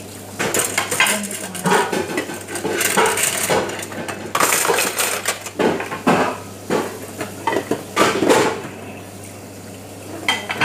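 Metal cutlery and dishes clattering as they are handled and piled, with many sharp, irregular clinks. A steady low hum runs underneath.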